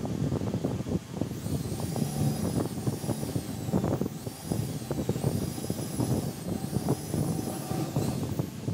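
Tools and loose parts clattering and knocking while a car's dash and steering column area are stripped. A faint high whine rises, holds and falls several times through it.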